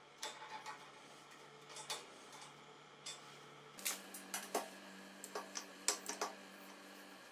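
Light metallic clicks and taps of steel parts being handled: a few early on, then a quicker, louder run of a dozen or so in the second half, over a faint steady hum.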